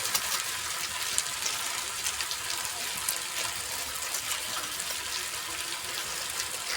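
Onion-tomato masala sizzling in hot oil in a pan: a steady hiss with small scattered crackles.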